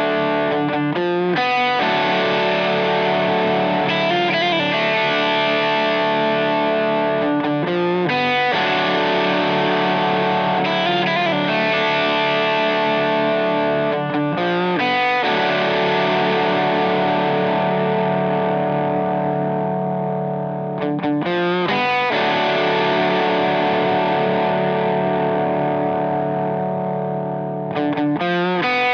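Edwards Les Paul-style electric guitar played through a distorted amp: long sustained chords left to ring, changing about every six or seven seconds with a few quick strums at each change.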